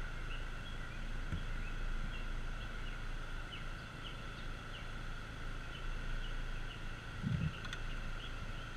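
Small scooter engine idling with a steady low hum, under a steady high-pitched drone and many short bird chirps. A low thump sounds about seven seconds in.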